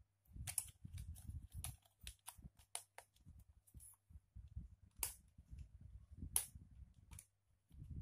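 Handling noise from a USB cable being handled: a run of irregular sharp clicks and taps over a low rumble, densest in the first few seconds, with two louder clicks about five and six and a half seconds in.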